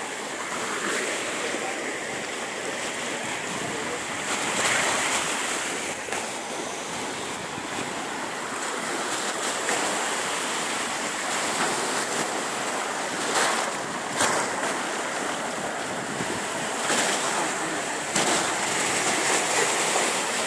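Small sea waves washing onto a dark pebble beach: a steady rush of surf that swells louder every few seconds as waves break and run up the shore.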